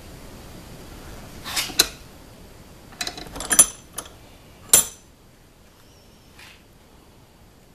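Several sharp metallic clinks and clacks in three quick groups, the later ones ringing briefly, as a 1911 pistol slide and its front sight are handled and worked in a leather-padded bench vise.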